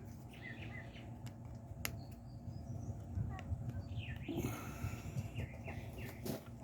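Birds chirping over a steady low outdoor rumble, with a few sharp clicks from small engine parts being handled.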